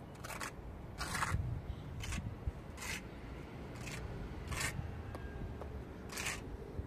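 A steel trowel scraping cement plaster across a rough concrete-block wall in short strokes, one every second or so, as pitted patches of the wall are filled and smoothed.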